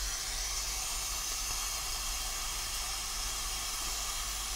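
Gas brazing torch flame hissing steadily as it heats a copper-to-aluminium pipe joint.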